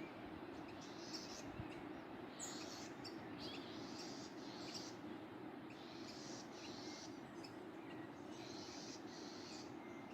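Steady, faint rush of a waterfall, with birds singing short high phrases about once a second over it.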